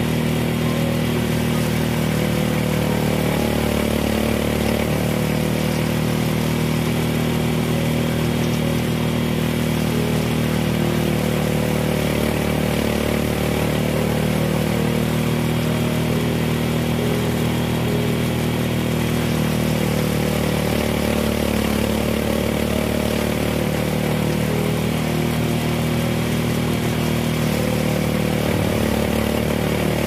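Small engine of a rice harvester running steadily, its pitch shifting slightly now and then.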